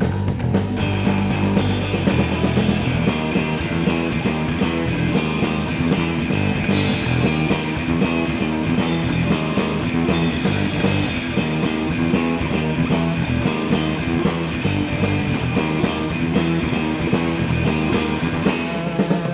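Instrumental rock music without vocals, driven by guitar, with a steady beat.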